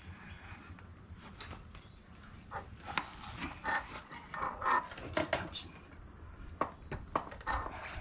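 Scattered clicks, knocks and scrapes of hand work on a motorcycle's rear wheel as the axle is worked through a tight fit in the hub and spacers.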